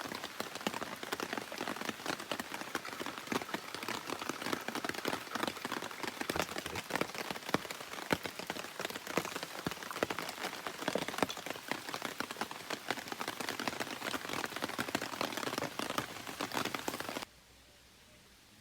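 Steady rain falling, a dense hiss full of sharp individual drop hits, which cuts off suddenly near the end.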